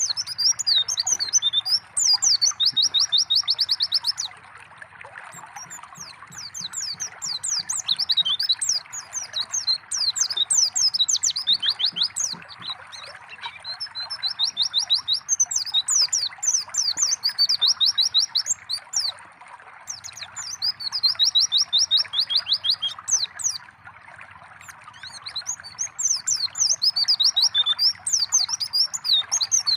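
White-eye (pleci) song: bouts of fast, high twittering and rapid trills a few seconds long, coming again and again. Under it runs a steady trickle of water.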